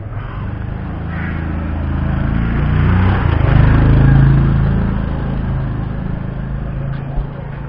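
A motorbike engine passing close by: it grows louder over the first few seconds, peaks about halfway through, then fades away.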